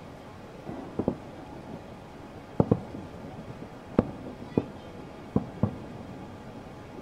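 Fireworks going off at a distance: a series of sharp bangs about every second or so, several coming in quick pairs, over a steady background hum.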